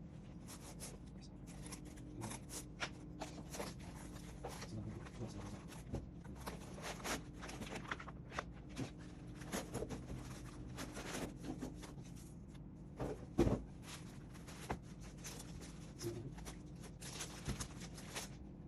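Packaging being handled during a laptop unboxing: scattered rustles and light clicks, with one louder knock about two-thirds of the way through, over a steady low hum.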